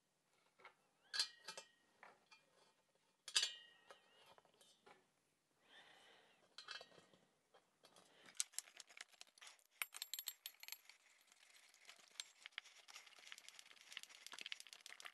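Steel wood screws clinking sharply against a steel table-leg mounting plate, twice, about a second in and about three seconds in, each with a short metallic ring. From about eight seconds in, a quick run of small ticks and scrapes as a hand screwdriver turns a screw down through the plate.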